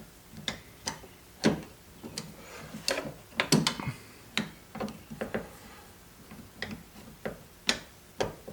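A string of irregular, sharp clicks and taps from a Torx bit probing inside a car door's lock access hole as it hunts for the lock cylinder's retaining screw.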